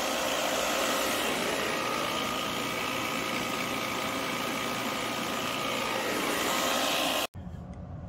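Refrigerant recovery machine running steadily as it pulls R22 out of an old air-conditioning system, its compressor and fan a constant noise with a faint steady hum on top. The noise cuts off abruptly near the end, leaving quieter background.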